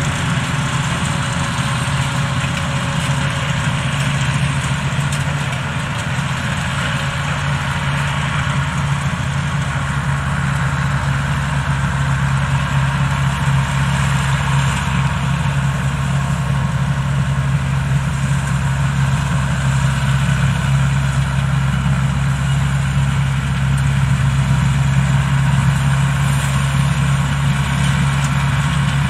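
Homemade Vietnamese rice combine harvester running steadily as it cuts rice, with a constant engine drone that gets slightly louder in the second half as the machine comes closer.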